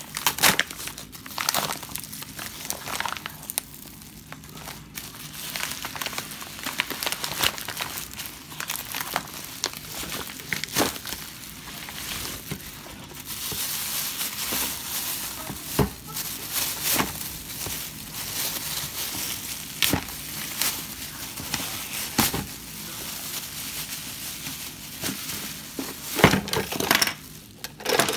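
A plastic mailer bag and a thin plastic bag crinkling and rustling as they are unwrapped by hand, with irregular sharp crackles.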